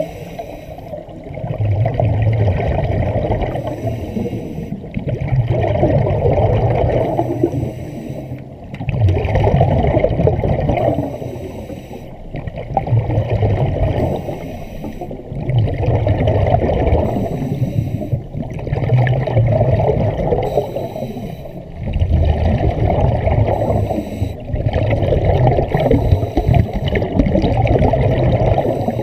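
Scuba regulator breathing heard underwater: a short hiss followed by a rush of bubbles, repeating in a steady cycle about every three seconds.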